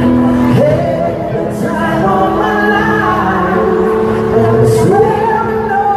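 Music with a singing voice: long held notes, with the voice sliding up into a note about half a second in and again about five seconds in.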